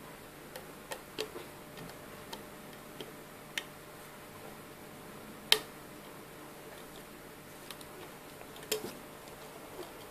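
Small irregular clicks and taps of a plastic hook tool and rubber bands against the plastic pegs of a Rainbow Loom as bands are hooked and lifted, about a dozen in all, the sharpest a little past the middle.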